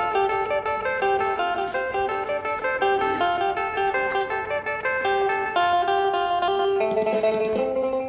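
Phin, the Isan plucked lute, playing a quick melody of short plucked notes, with lower notes joining near the end.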